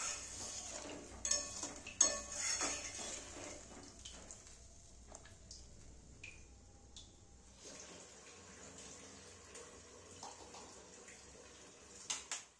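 Metal spatula scraping and knocking against a metal kadai as a watery chicken-mince curry is stirred, loudest in the first few seconds. After that comes the quieter, steady bubbling of the curry simmering, with a few small ticks and one more knock near the end.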